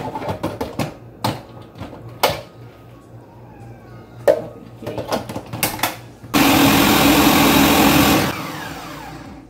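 Ninja countertop blender: sharp clicks and knocks as the lid is pressed and locked onto the jar, then about six seconds in the motor runs loudly for about two seconds, blending chopped beetroot, carrot and water. It then winds down with a falling whine.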